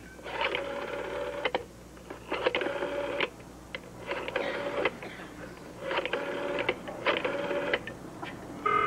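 Telephone rotary dial being turned and whirring back with rapid clicks, five times in a row. Near the end a steady ringing tone comes on the line.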